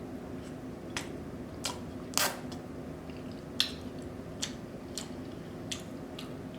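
Close-up eating sounds: chewing with about eight short, wet mouth clicks and smacks scattered through, the loudest about two seconds in, over a low steady background hum.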